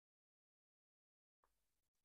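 Near silence, the sound cut out completely, with a faint brief noise near the end.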